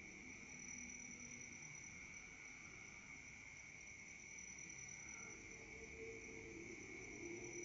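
Faint, steady chorus of night insects, crickets trilling at two unbroken pitches, one middling and one high, over a low background hiss.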